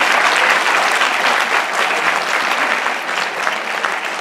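Audience applauding, dense clapping that is loudest at first and slowly dies down.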